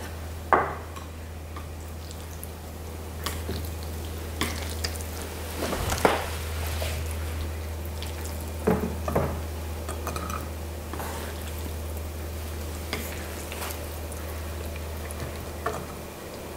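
Wooden chopsticks stirring and tossing sauced instant noodles on a ceramic plate: soft wet rustling of the noodles, with scattered taps and clicks of the chopsticks against the plate.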